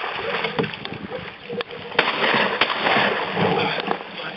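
Water splashing and sloshing around a canoe as it is paddled, with a few sharp knocks against the hull; the splashing is loudest in the middle.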